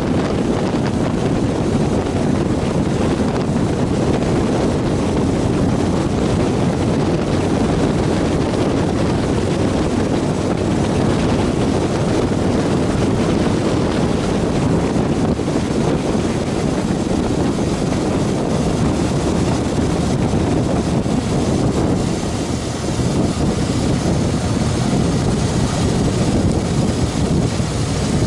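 Steady wind rush buffeting a bike-mounted camera's microphone as a Harley-Davidson Fat Boy Lo cruises at highway speed, with the motorcycle's engine and road noise mixed in underneath.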